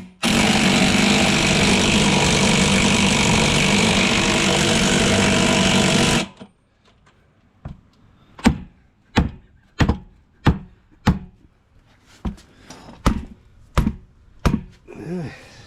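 An impact gun runs steadily for about six seconds, driving down a tyre bead-breaking tool, then stops suddenly. After a pause, about ten sharp hammer blows strike the bead breaker, roughly one every two-thirds of a second.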